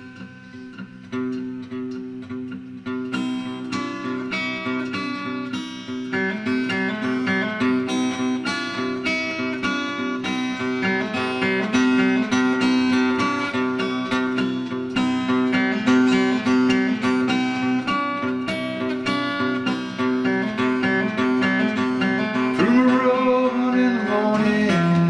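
Seagull acoustic guitar playing a picked chord pattern as the instrumental introduction to a song, building in loudness over the first few seconds. A voice comes in near the end.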